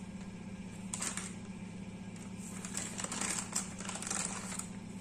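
A spoon scraping and rustling in a container of flour as a spoonful is scooped out: a short scratchy burst about a second in, then several more in the middle, over a steady low hum.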